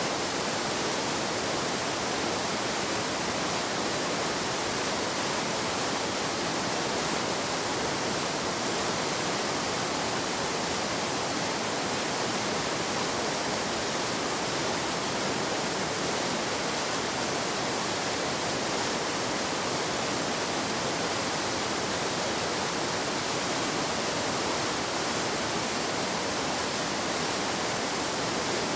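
Waterfall: a steady, unbroken rush of falling water with no changes.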